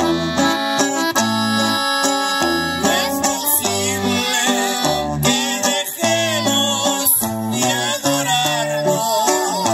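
Live norteño music: an accordion plays the melody over a strummed guitar and a bass line.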